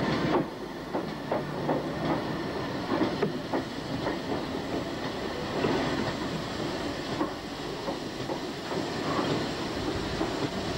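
Steam train passing, banked at the rear by a Great Western 4200 class 2-8-0 tank engine: its wheels knock over the rail joints in an irregular run over a steady rush of noise.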